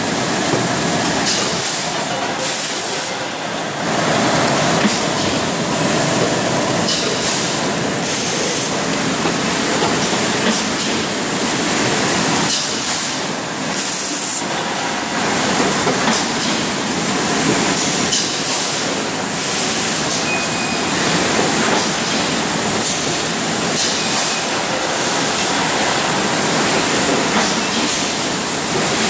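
Automatic PET water bottling line running: a loud, steady rush of air and machine noise with frequent short bursts.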